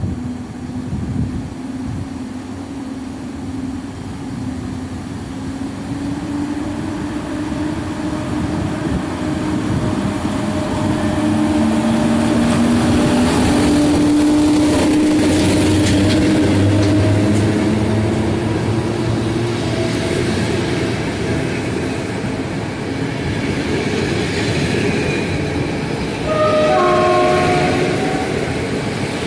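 EP07 electric locomotive pulling a passenger train past along the platform: the locomotive's electric hum rises and falls in pitch, and the wheels rumble on the rails, loudest as the locomotive goes by. The coaches follow with a lower rumble, and a brief loud pitched tone sounds near the end.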